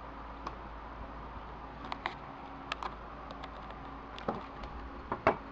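Scattered light clicks and taps, with a louder knock about five seconds in, from hands handling the camera and the radio, over a steady low electrical hum and hiss.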